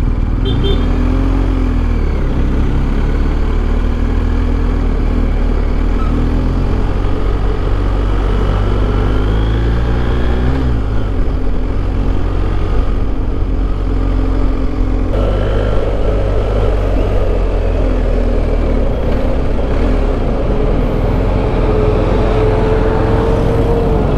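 Motorcycle engine running under way in traffic, its revs rising and falling with gear changes, over a heavy rumble of wind and road noise.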